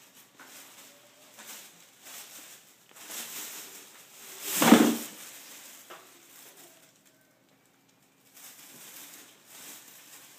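Thin plastic bin liner rustling and crinkling in short bursts as kittens push into and paw at it, with one louder burst of rustling about halfway through.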